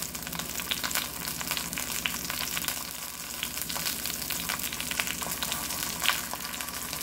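Beef steak frying in hot bacon drippings in a cast-iron skillet: a steady sizzle dotted with many small crackles and pops.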